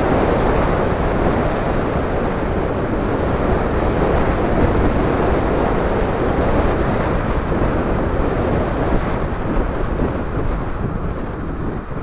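Wind blasting across the microphone of a camera mounted on a fast-moving electric bike, a loud, steady rush mixed with road noise. It dies down near the end.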